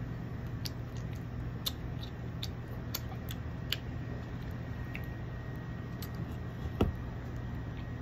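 Light clicks and taps of a drink can and a plastic straw being handled, with one louder knock about seven seconds in, over a steady low hum.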